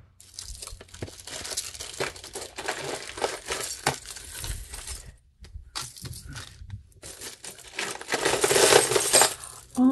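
A handful of loose costume jewelry (metal chains, bangles and seed-bead necklaces) rattling and clinking as it is sifted by hand, in three stretches with two short pauses, loudest near the end.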